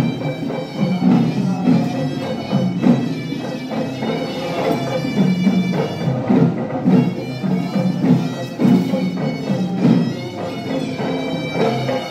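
Music led by a reedy, bagpipe-like wind instrument holding a melody over drum beats.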